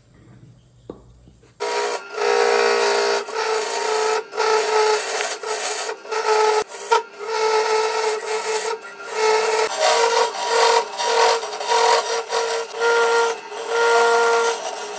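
A turning tool scraping the inside of a spinning segmented maple-and-rosewood vase on a wood lathe. The harsh scraping, with a steady tone in it, starts suddenly about a second and a half in, then breaks off and resumes many times as the tool is lifted and pressed back to the wood.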